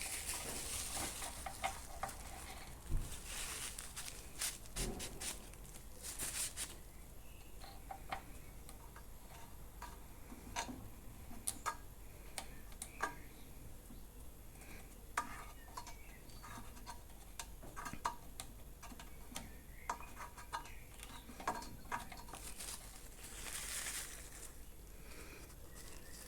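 Faint handling sounds of checking a lawn mower engine's oil with a piece of paper: scattered light clicks and taps, with a few short rustles near the start, about 6 seconds in and near the end.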